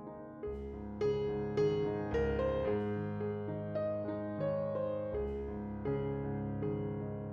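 Background music: piano playing a gentle melody over sustained bass notes.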